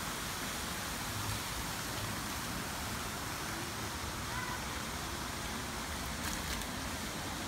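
Steady hiss of fountain water spraying and splashing into a pool, with a few faint clicks near the end.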